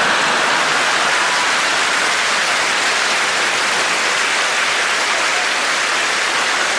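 Studio audience applauding steadily in response to a joke's punchline.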